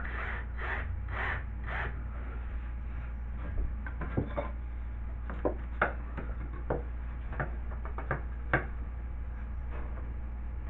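Hand work on a small drywall piece: about five rasping strokes, roughly two a second, in the first two seconds, then scattered light knocks and taps as the piece is handled and fitted. A steady low hum runs underneath.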